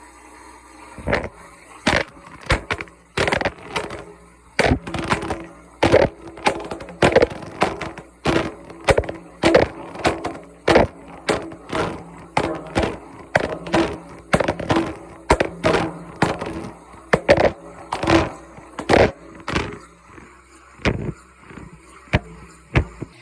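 A cased phone tumbling in a washing machine drum, knocking against the drum in irregular thuds about once or twice a second over the faint hum of the machine.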